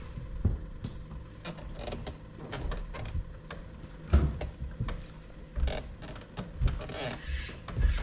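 Irregular knocks and thumps with light clicks from gear being handled on a fishing boat, a handful of heavier thumps among them.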